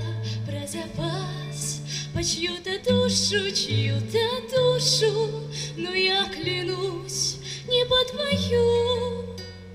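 A song sung by a solo singer accompanied on acoustic guitar, with sustained bass notes that change about once a second, amplified through a stage sound system.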